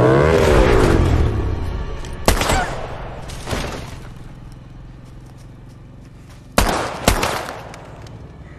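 A dirt bike's engine passing close at speed, loudest at the start and fading, then gunshots with a ringing echo: one about two seconds in, a weaker one a second later, and two more half a second apart near the end.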